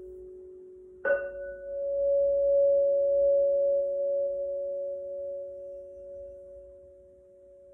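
Crystal singing bowls ringing with two steady, pure tones. About a second in, one bowl is struck with its wand. Its higher tone then swells as the wand is rubbed around the rim, and slowly fades toward the end.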